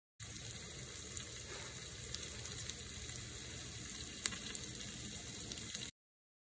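Chopped garlic frying in melted butter in a saucepan: a steady sizzle with scattered small pops, the sharpest a little past halfway. It cuts in and cuts off abruptly.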